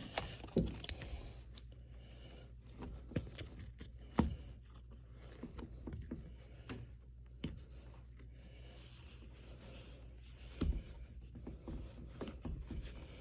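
Light scraping and rustling of hands and a wire working over new truck carpet, with scattered short knocks and clicks, over a faint steady low hum.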